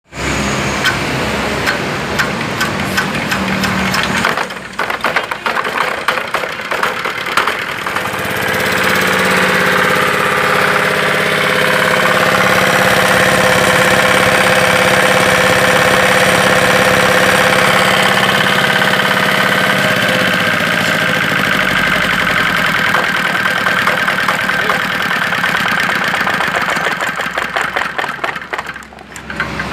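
Jiangdong ZH185 10 hp single-cylinder diesel engine running. It gives a fast, even knock at first, runs up to a louder, steady note from about eight seconds in, and drops back to a slower knocking beat after about twenty seconds.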